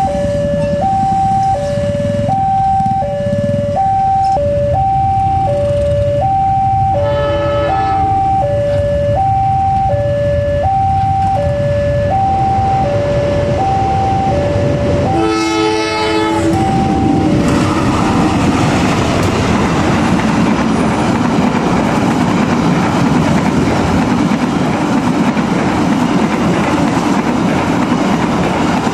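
Level-crossing warning alarm sounding a steady two-tone electronic signal, alternating between a higher and a lower pitch, as a train approaches; the locomotive's horn sounds briefly about seven seconds in and again, louder and longer, at about fifteen seconds. From about seventeen seconds the passenger train passes close by, the noise of its wheels and engine drowning out the alarm.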